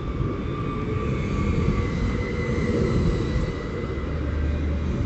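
Koleje Mazowieckie electric multiple unit moving along the platform close by: a steady low rumble of wheels and running gear, with a faint electric whine above it.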